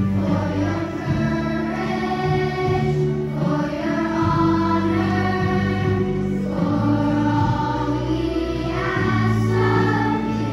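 Large children's choir singing a song in unison over instrumental accompaniment.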